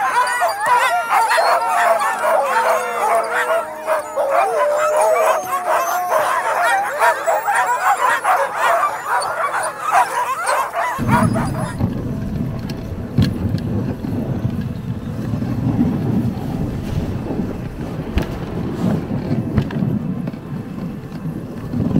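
A pack of sled huskies howling, yelping and barking all together in an excited din, typical of dogs straining to start a sled run. About halfway through the dog noise cuts off and a steady low rushing rumble takes over.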